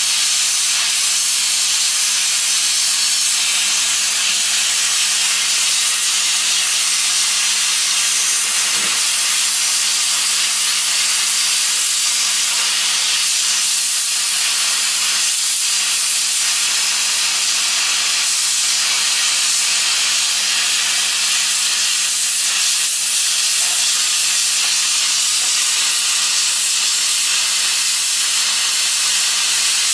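GEP-2 hot-air plastic welding gun blowing a steady hiss of hot air as it welds a polyethylene filler strip into a barrel seam. A steady low hum runs underneath.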